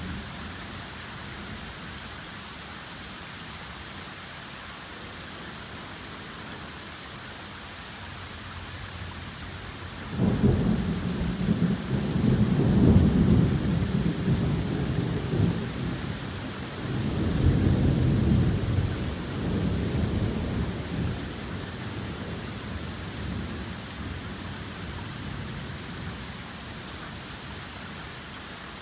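Torrential rain hissing steadily. About ten seconds in, thunder breaks out suddenly and rumbles loudly, swells again a few seconds later, then dies away.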